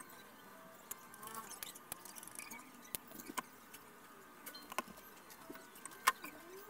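Scattered light clicks and taps of hard plastic and wire being handled as a cell pack is fitted into a plastic downtube battery case, the sharpest click a little after six seconds in, over faint background sound.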